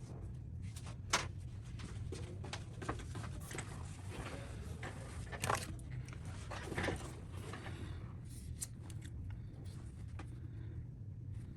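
Scattered light taps and clicks from fingers and hands handling a smartphone on the bench, over a steady low hum.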